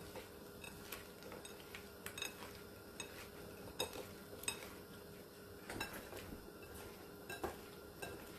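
Hands tossing sliced yellow squash in buttermilk in a glass pie dish: faint, irregular light clinks and taps of squash and fingers against the glass, over a faint steady hum.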